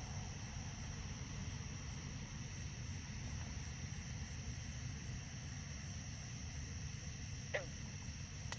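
Steady high-pitched chorus of night insects such as crickets, over a low, even background rumble, with one short faint sound near the end.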